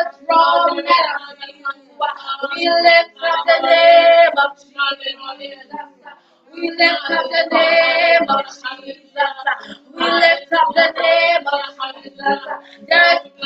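Worship song sung in short phrases, led by a woman's voice with other voices joining in, over a steady low note held underneath.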